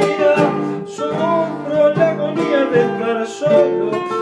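Two nylon-string classical guitars playing a zamba together, strummed and plucked, with a man singing the melody over them.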